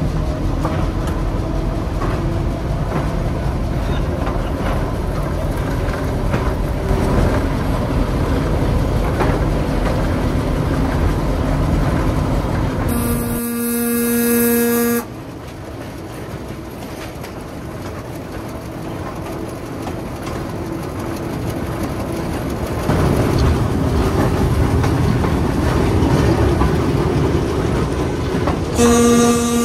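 Diesel-hauled train running, a steady rumble of engine and wheels heard from a coach window. Its horn sounds once for about two seconds about halfway through, and again just before the end as the train reaches a level crossing.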